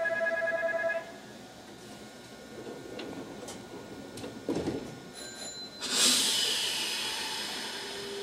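Station platform departure bell ringing with a steady electronic trill, cutting off about a second in. A few faint clicks follow, then at about six seconds the stopped Nankai 2000 series train gives a loud hiss of released air that slowly dies away.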